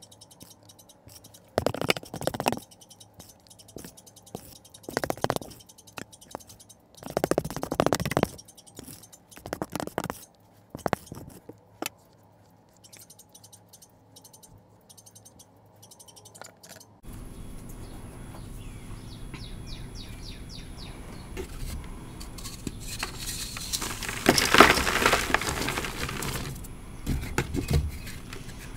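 Thick wet cornstarch and calcium carbonate paste scooped with a spoon and dropped into a silicone mold, in several short scraping, squelching bursts. After a cut, hands rub and lift chalk pieces in loose chalk powder, with a louder stretch of powdery rubbing and crunching a few seconds before the end.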